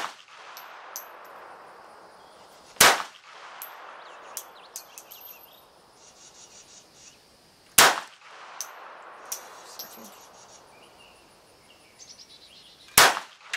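Three single shots from a Smith & Wesson M&P380 Shield EZ .380 ACP pistol, about five seconds apart, each a sharp crack with a short echo. The third shot empties the magazine.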